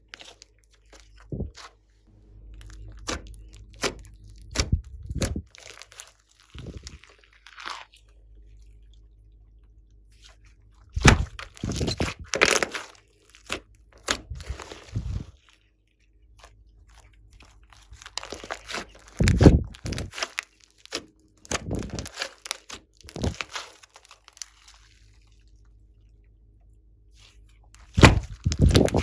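Slime being squeezed and pressed by hand, making crackling, popping clicks. These come singly at first and then in two dense runs, with quieter stretches between.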